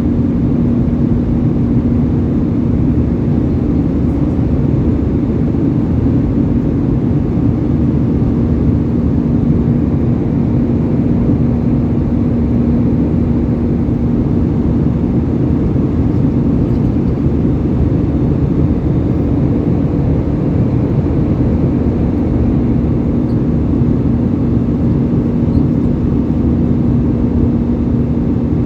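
Airbus A320 cabin noise in flight: a steady, loud drone of engines and rushing air, with a constant low hum running through it.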